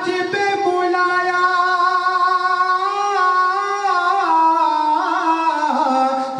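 A man singing a naat (Urdu devotional poem) solo and unaccompanied into a handheld microphone, holding long drawn-out notes with small ornamental turns, the melody stepping down in pitch near the end.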